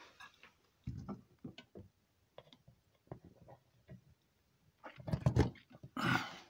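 A power plug being fumbled into a wall outlet: scattered small clicks and knocks, a thump about a second in, and a louder clatter of bumps about five seconds in as the plug goes in.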